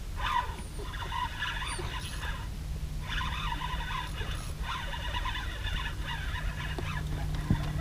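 Wind rumbling on the microphone, over repeated high, buzzy animal calls that come in bouts of a second or two with short gaps. A steady low drone comes in a few seconds in and grows louder toward the end.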